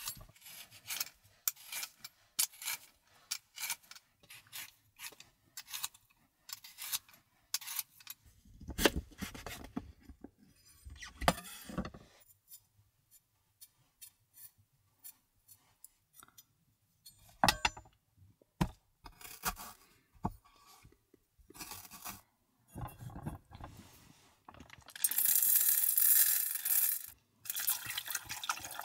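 Meal preparation: many rapid light clicks and knocks of utensils and dishes for the first several seconds, then scattered clinks and scrapes, with a stream of water for about two seconds near the end.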